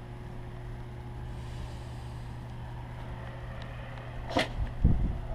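Steady electrical hum from a substation, an even low drone with a fainter higher overtone. About four seconds in there is a brief sharp noise, then a couple of low thumps.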